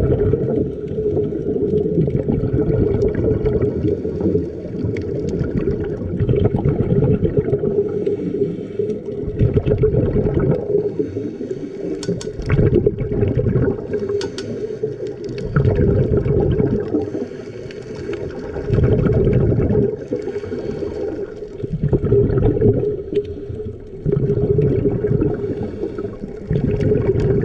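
Underwater sound of scuba diving: a diver's exhaled regulator bubbles gurgling in surges every three seconds or so over a steady low hum.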